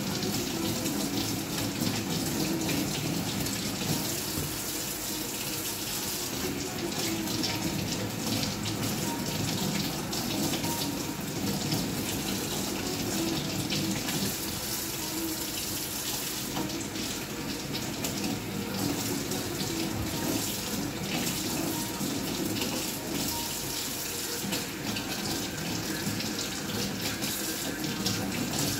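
Kitchen tap running steadily, the stream splashing over hands and mushrooms being rinsed under it.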